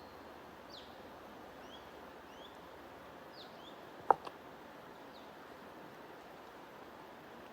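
Small birds chirping faintly, short falling chirps every second or so, over a steady low hiss of white noise. One sudden sharp snap about four seconds in, much louder than the rest.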